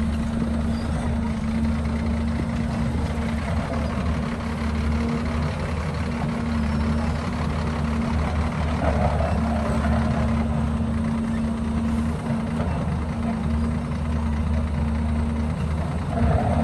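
Heavy diesel engine of construction machinery running steadily with an even low hum.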